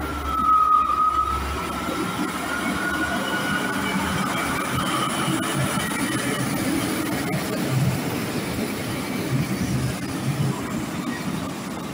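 Small yellow diesel shunting locomotive and a flat wagon rolling slowly past, the engine running with a steady low rumble. The wheels give a wavering high-pitched squeal on the rails, loudest about a second in and fading after.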